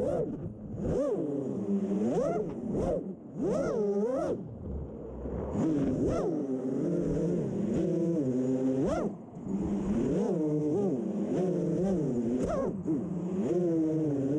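A 6-inch FPV racing quadcopter's four brushless motors (Emax ECO 2207 2400kv) and propellers whining. The pitch rises and falls sharply about once a second as the throttle is punched and chopped in freestyle flying.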